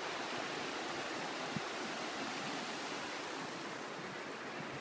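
Steady rush of a fast-flowing creek running over rocks, with a faint tap about a second and a half in.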